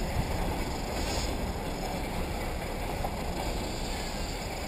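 Radio-controlled off-road model cars racing on a dirt track, a steady mix of distant motor noise and outdoor wind.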